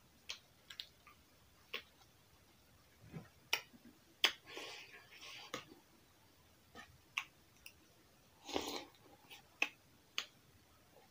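Close-up eating sounds: chewing and sharp, irregular mouth smacks and clicks as roti and potato curry are eaten, with a spoon tapping and scraping in an enamel bowl.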